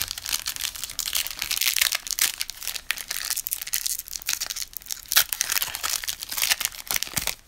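A Panini Contenders basketball trading-card pack wrapper being torn open and crinkled by hand, a dense run of crackling with sharp little snaps that stops just before the end.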